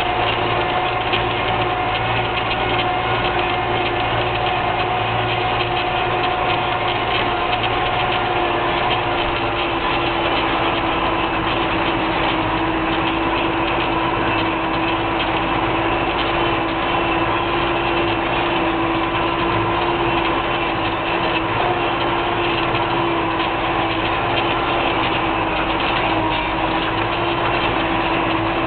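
Case IH 956 XL tractor's six-cylinder diesel engine running steadily as the tractor drives along, heard from inside the cab.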